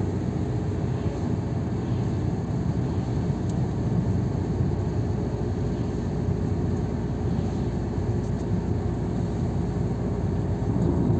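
Car driving along at a steady speed, heard from inside the cabin: a steady low drone of engine and tyre noise.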